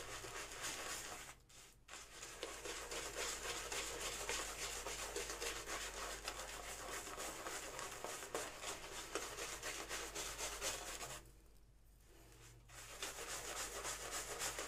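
Shaving brush working thick Cella soap lather over a stubbled scalp: a steady bristly rubbing and scratching that stops briefly twice, about a second and a half in and again about eleven seconds in.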